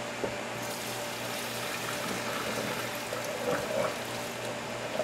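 Hot pasta water pouring out of a tilted pot into a colander in a stainless steel sink, splashing as the spaghetti is drained. The pour starts about half a second in, with a few louder splashes a little past the middle.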